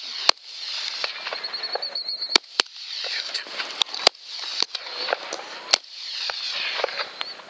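Rifle shots from hunters' .223 rifles: one loud sharp shot just after the start, then about six more shots spread over the following seconds, with a rushing noise in between.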